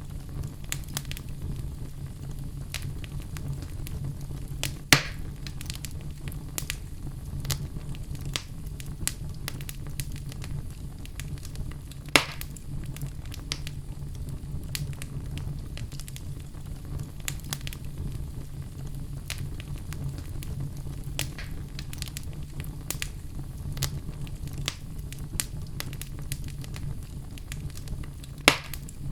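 Wood fire burning in a fireplace: a steady low rumble of flames with frequent small crackles, and three sharper pops, about five seconds in, about twelve seconds in and near the end.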